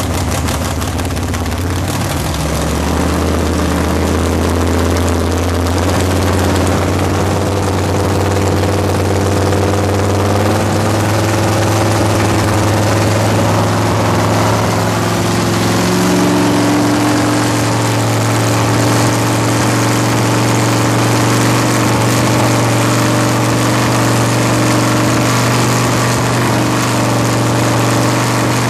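Freshly built carbureted V8 running steadily on its first start-up. Its idle steps up about two seconds in and shifts again past halfway as the carburetor is adjusted.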